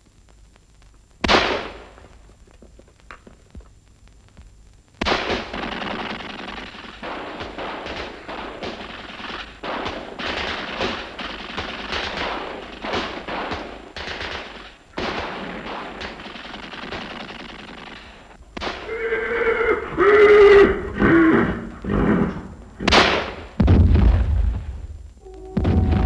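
Film battle soundtrack. A single loud shot about a second in is followed by a long spell of rapid, dense gunfire. Near the end come a few wavering pitched cries and two heavy bangs.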